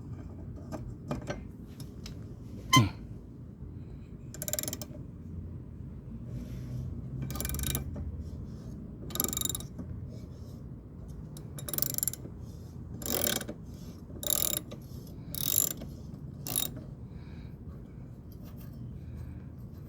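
Socket ratchet working the blade bolt of a Troy-Bilt lawnmower: one sharp metallic knock about three seconds in, then a run of short ratcheting rasps about once a second as the handle is swung back and forth.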